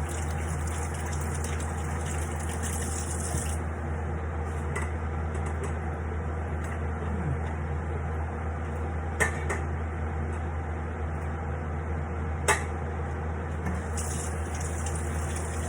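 Pot of water boiling on the stove with squash in it, a steady bubbling wash of sound over a constant low hum. Two sharp clinks of a pot or utensil, about nine and twelve and a half seconds in.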